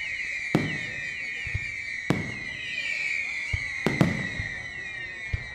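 Fireworks display: about four sharp bangs with echoing tails, two of them in quick succession about four seconds in, over a continuous high-pitched wavering sound.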